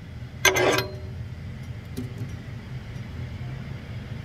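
A last plucked-string music chord about half a second in, then a steady low hum of running machinery.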